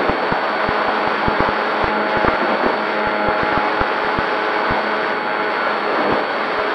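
Durafly Tundra RC plane in flight heard from its onboard camera: a steady rush of airflow mixed with the hum of its electric motor and propeller, with many brief low thumps scattered through.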